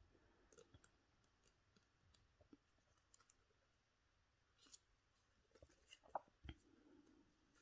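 Near silence, with faint scattered clicks and rustles from hands handling foamiran foam flower petals on a thin wire stem, and a soft knock a little after six seconds in.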